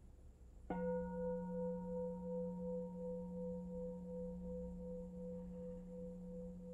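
Singing bowl struck once, less than a second in, then ringing on with a low hum and a higher tone that pulses and wavers as the whole sound slowly fades. It is one of the three strokes that open the meditation.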